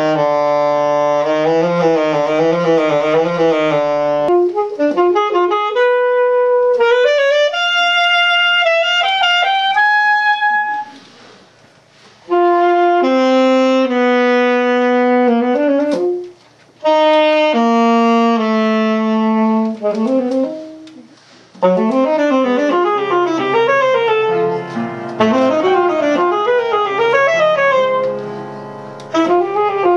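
Live saxophone playing a slow, jazzy melody in phrases with short breaths between them, wavering with vibrato at first, over piano accompaniment that fills out in the last third.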